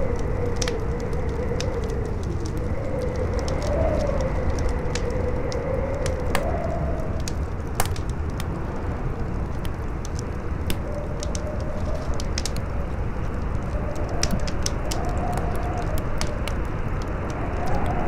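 Campfire crackling with scattered sharp pops, under strong wind howling in a tone that slowly rises and falls over a steady low rumble.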